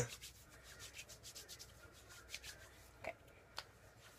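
Hands rubbing lotion into the skin: faint, soft rubbing strokes, then two light ticks about three seconds in.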